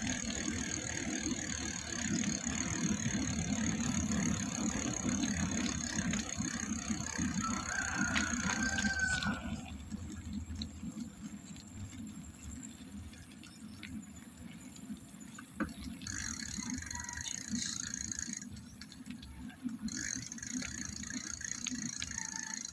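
Bicycle rolling along a wet concrete road: a steady rumble and hiss of tyre and road noise, with rattling from the bike and the phone mount. There is a short squeal about eight seconds in, and the noise drops quieter for several seconds past the middle.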